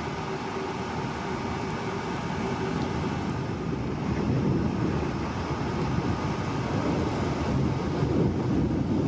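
Wind blowing across the microphone, a fluctuating rumble over a steady outdoor background hum, a little stronger in the second half.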